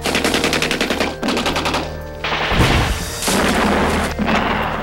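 Several short bursts of rapid automatic gunfire, each under a second long, over music with a steady low bass note.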